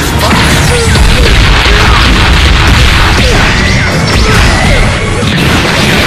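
Cartoon fight sound effects: a dense, rapid flurry of punch impacts and whooshes from a fast exchange of blows.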